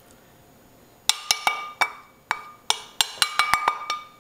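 A wooden spoon knocked about a dozen times against metal cookware, each knock ringing briefly, to shake the last of the cooked onions and garlic off the spoon. The knocks begin about a second in and come quicker near the end.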